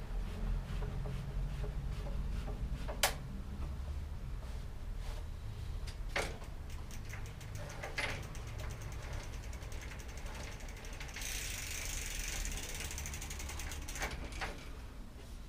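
Rapid ratcheting clicks from work on a Dutch bike's rear wheel, with a few sharper clicks in between. About two-thirds of the way through, a hissing rustle runs for a few seconds.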